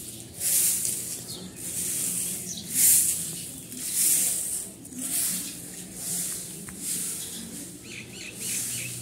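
Rhythmic swishing of someone cleaning the ground, about one stroke a second.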